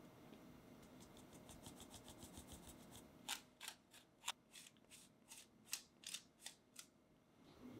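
Fine stainless-steel mesh sieve jiggled to sift cake flour into a saucepan. Faint quick strokes come first, then about a dozen sharper ones roughly three a second, stopping about a second before the end.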